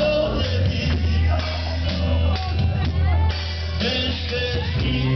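Live church worship music with a band (bass, drums, guitar) and voices singing.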